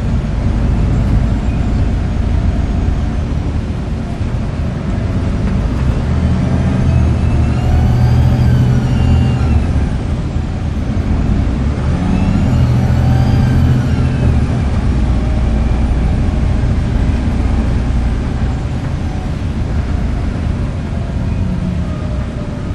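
Volvo B7TL bus's turbocharged diesel engine pulling under load. Its turbo gives a high whistle that rises and then falls twice, about a third of the way in and again just past halfway, over a steady low engine drone.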